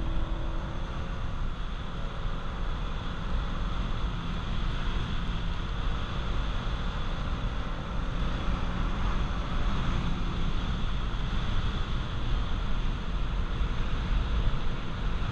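Steady in-cabin driving noise of a Honda Accord CB7 climbing a mountain road: the engine running under way, mixed with tyre and wind noise.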